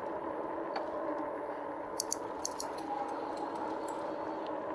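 2018 RadRover electric fat-tire bike ridden slowly: a steady hum with a few light rattling clicks about two seconds in.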